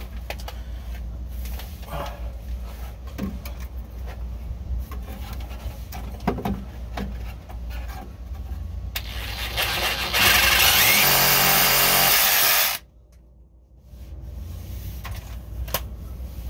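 Cordless power saw cutting through the old suspension bushing by the axle, a slow cut that leaves the owner thinking he needs a better blade. It runs at a moderate level with scattered rattles for several seconds, goes loud and hissy for about three seconds, then stops abruptly.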